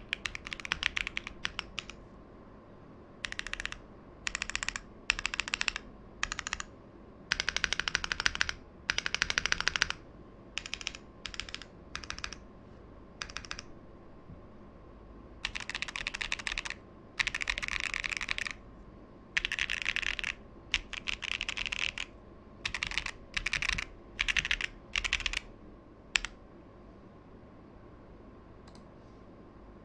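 Typing on a Tofu65 v2 mechanical keyboard with TTC Holy Panda tactile switches, a carbon-fibre plate and GMK-style keycaps. The typing comes in short bursts of rapid keystrokes with brief pauses between them, and stops a few seconds before the end.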